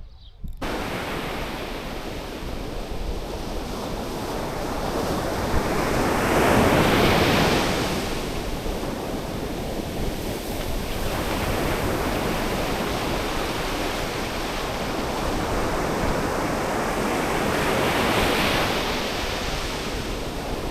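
Ocean surf: a steady wash of breaking waves, with two larger waves building and breaking, one about a third of the way in and one near the end.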